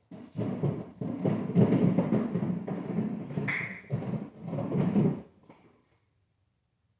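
A short stretch of music with drums, lasting about five seconds and then cutting off.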